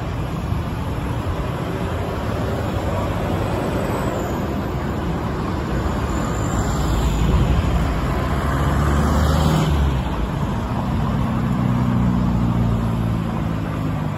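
Road traffic: cars, pickup trucks and motorcycles running through a busy intersection as a steady rumble of engines and tyres. The low engine hum grows louder as vehicles pass close, about six to ten seconds in and again near the end.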